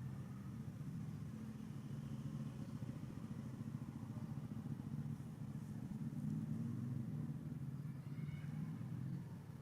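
Steady low rumble with a wavering hum, like background traffic or an engine.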